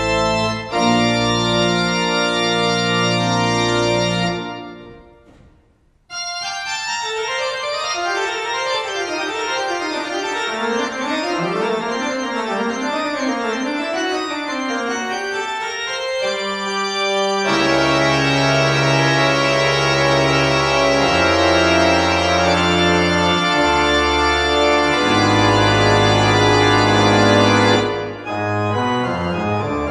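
Pipe organ playing: sustained full chords that die away into a brief pause with the hall's reverberation about five seconds in, then a fast run of notes climbing and falling, then loud full chords over changing pedal bass notes for the last third.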